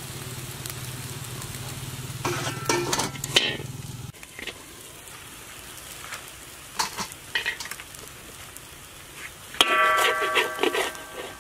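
Egg omelette sizzling in a large metal wok. A metal spatula scrapes against the pan several times, and each scrape rings a little; the longest and loudest scraping comes near the end. A low steady hum stops about four seconds in.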